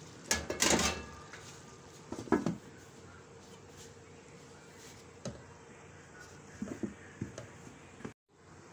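Aluminium lid being set on a large aluminium cooking pot, with a clatter of metal knocks about half a second in and another knock about two seconds in. A few lighter knocks follow as a cloth is spread over the lid to seal the pot for dum steaming.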